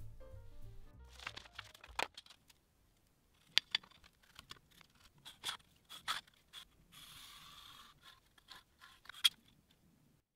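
Marking out a steel sheet: a steel rule and square set down on the sheet with scattered sharp clicks, and a marker pen drawn along the rule in a scratchy stroke of about a second near the middle. Background music fades out in the first two seconds.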